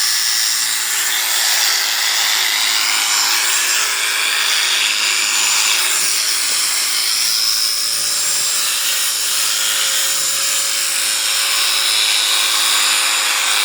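Electric sheep shears running steadily, a continuous high-pitched whine as they cut through the fleece.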